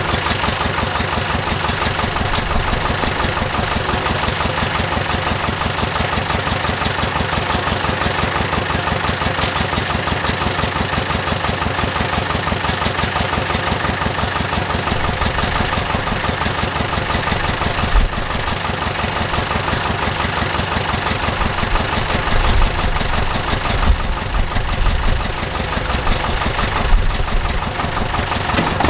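Site dumper's engine running steadily with a fast, even beat, with a few heavier low thumps in the second half.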